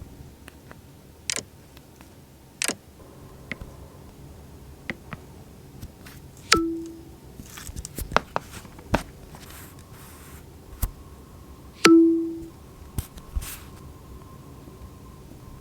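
Two short, identical alert dings from iPhone loudspeakers, about five seconds apart, each ringing out briefly. Scattered sharp clicks and taps come between them.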